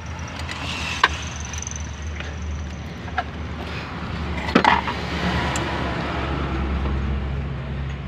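A few light clicks and knocks from parts of a car's fuel pump assembly and its hose being handled and fitted in the fuel tank opening, the loudest a quick cluster about halfway through, over a steady low hum.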